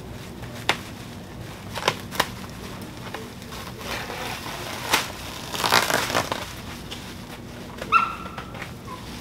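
Scissors snipping through plastic wrapping: sharp clicks of cuts, then a longer stretch of crinkling, rustling plastic a little past halfway. Near the end, a short high-pitched cry.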